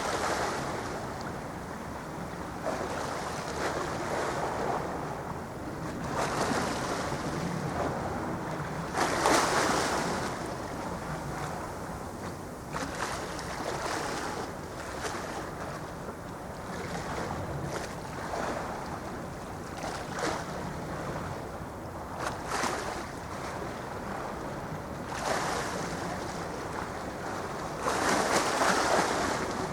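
Waves washing and wind buffeting the microphone, a steady rushing noise that swells loudly about nine seconds in and again near the end, over a faint steady low hum.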